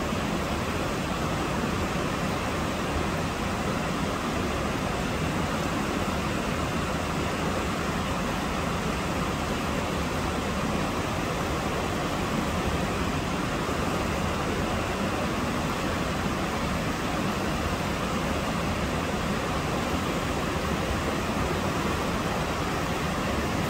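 Reuss River rushing and spilling through a weir in a steady, unbroken roar of white water.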